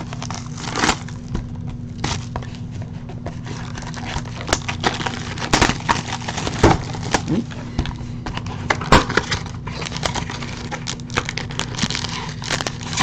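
A sealed box of trading cards being opened by hand: shrink wrap and cardboard crackling, tearing and clicking in quick irregular bursts, over a steady low hum.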